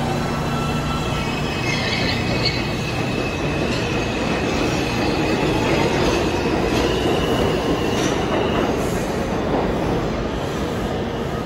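R142-series New York subway train running through the station: a steady rumble of wheels on rail with a thin, high-pitched wheel squeal that fades out about nine seconds in.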